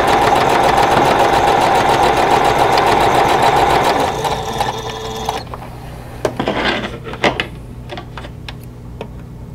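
Singer electric sewing machine running at a fast, even stitch, slowing about four seconds in and stopping about a second later. A few light clicks follow.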